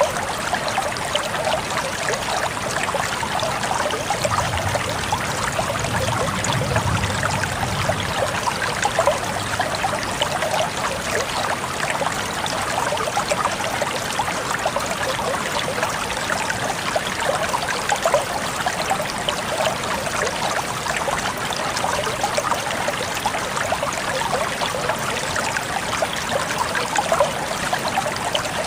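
Waterfall: a steady, unbroken rush of falling water, with a brief deeper rumble underneath about four to eight seconds in.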